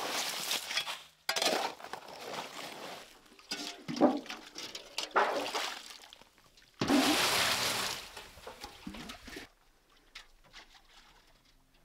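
Broken lake ice being worked out of a hole in the ice with a long wooden-handled tool: crunching and clinking of ice chunks and wet slush in several bursts, the longest and loudest about seven seconds in, then it goes quiet.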